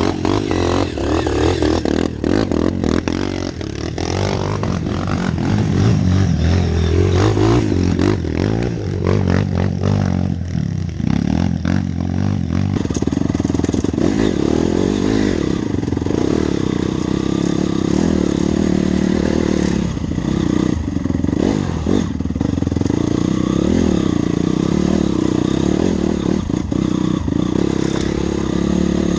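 Honda CRF dirt bike's single-cylinder four-stroke engine running and revving up and down on a rough trail, with frequent clattering knocks from the bike over rocks.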